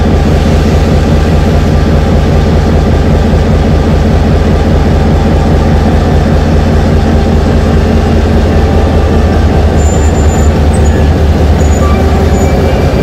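Diesel-electric locomotive's engine running loudly and steadily with a deep hum.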